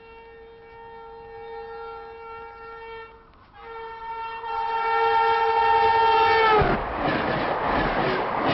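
A long horn blast from a passing vehicle, breaking off briefly about three seconds in, then growing louder and dropping sharply in pitch as it goes by, followed by loud rushing, rattling noise.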